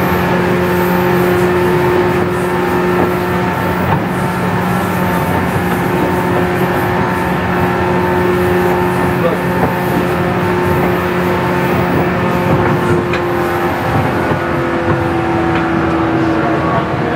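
Onboard running sound of a 117 series 100-bandai electric train at speed: a steady whine from the traction motors and gearing over rolling noise. The lowest hum drops out about two-thirds of the way through, and the main tone sinks slightly near the end.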